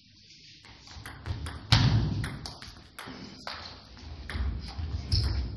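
Table tennis rally: the ball clicking back and forth off bats and table in a quick irregular run, with dull low thumps, the loudest about two seconds in.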